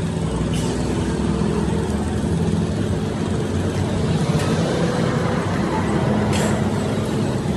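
An engine running steadily amid road-traffic noise, with a few faint clicks and taps over it.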